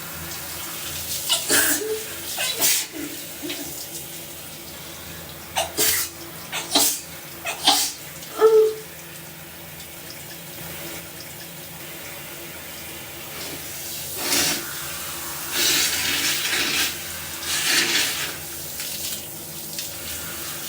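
Shower spray running steadily, with a woman sneezing several times over it in short, sudden, loud bursts. The sneezes are set off by soap in her nose and the hot shower steam.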